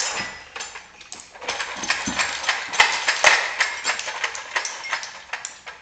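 Child's plastic toy accordion being shaken and swung, giving a dense run of clicks and rattles, loudest in the middle.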